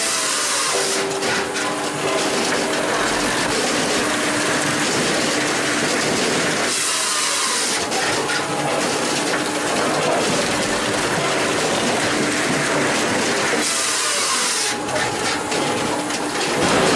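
Bell's firewood processor running at work: its power unit and hydraulics make a steady hum under the clatter of split wood falling onto the outfeed. About every seven seconds a brighter rasping rush returns as the saw cuts through the log.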